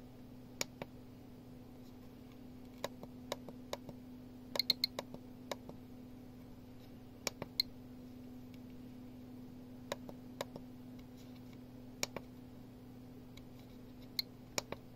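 Sharp clicks and short ticks from a GQ GMC-500 Geiger counter as its menu buttons are pressed, some coming in quick runs of two or three. A steady low hum runs underneath.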